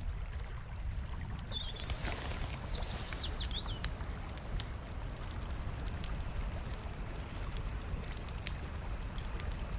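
Outdoor ambience: wind noise on the microphone, with a few short bird chirps in the first few seconds and a thin, steady high tone in the second half.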